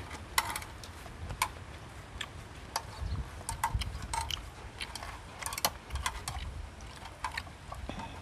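Chopsticks clicking and scraping against a tabletop grill pan as food is picked up, with chewing: a series of short, irregular clicks and taps.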